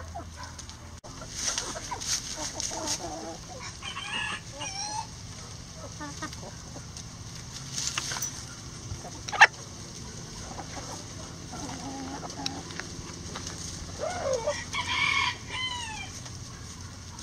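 Backyard chickens clucking as they feed, with a single sharp knock about halfway through, and a rooster crowing near the end.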